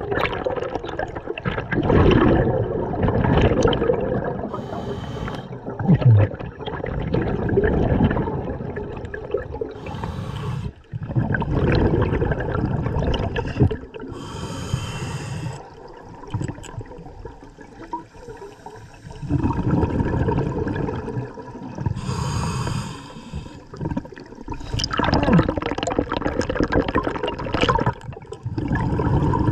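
Scuba diver breathing underwater through an open-circuit regulator: each breath is a short hiss on the inhale followed by a longer gurgling rush of exhaled bubbles, four breaths a few seconds apart.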